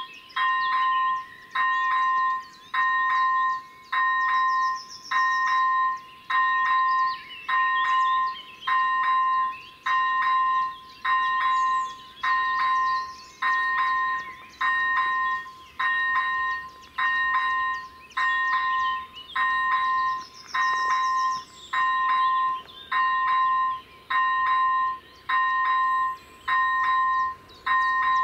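Electronic warning bell of an AŽD 97 railway level-crossing signal, ringing a steady ding over and over, about four strokes every three seconds, while the crossing is closed for an approaching train.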